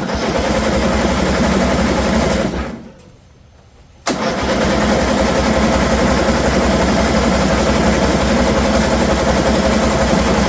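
Electric starter cranking the engine of a John Deere Z225 zero-turn mower in two tries, a short one of about two and a half seconds and then a long one of about seven seconds. The engine never fires or catches.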